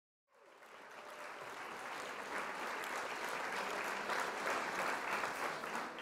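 Applause, many hands clapping, fading in gradually from about a third of a second in and then holding steady.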